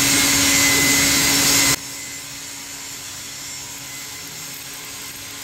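Loud steady hiss with a faint hum, cutting off abruptly a little under two seconds in. After it comes a quieter steady hiss of a stick-welding arc burning a 7018 electrode on steel pipe.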